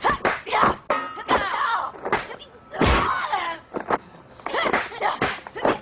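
Movie fight sound effects: a quick run of sharp punch and block impacts mixed with the fighters' shouts and grunts, with one heavier thud about three seconds in.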